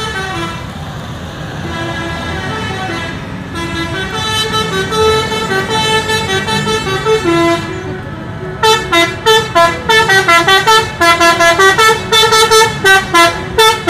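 Indonesian intercity coach sounding a multi-tone melodic 'telolet' horn over its running engine: a wavering tune from a few seconds in, then a fast run of short notes of changing pitch from about halfway.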